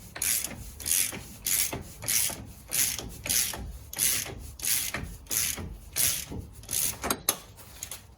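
Ratchet wrench tightening the axle hub nut onto the CV axle's threads. It makes a steady run of short ratcheting rasps, one every half second or so, with each back-stroke of the handle.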